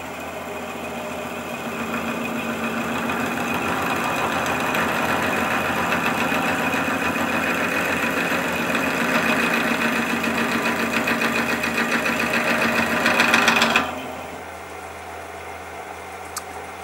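Wood lathe running with a square wooden blank spinning against a stationary drill bit that bores into its end. The cutting noise builds steadily, then drops off suddenly near the end, leaving the lathe running on its own. It is a drilling attempt that does not seem to want to work.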